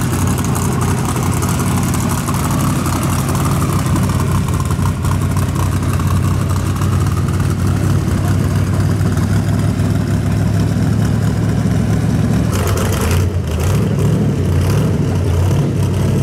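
Hot rod pickup's V8 engine and exhaust rumbling steadily at low speed as the truck rolls slowly by. The note shifts about twelve seconds in.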